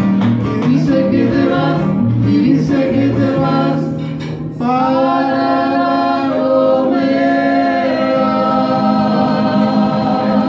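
A man and a woman singing a duet to two strummed classical guitars. About four and a half seconds in, the voices settle into one long held note over the guitars.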